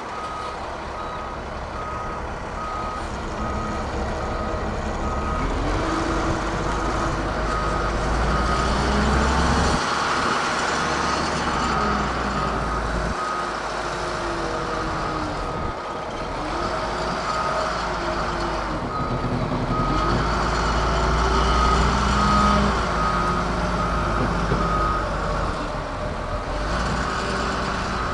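Rough-terrain crane's diesel engine revving up and down several times as the boom swings, with a steady series of short warning beeps at one pitch.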